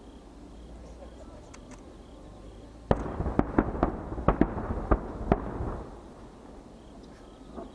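Aerial firework shells bursting in a rapid volley: about ten sharp, loud bangs packed into under three seconds, starting about three seconds in, with a trailing rumble that dies away. A few faint pops follow near the end.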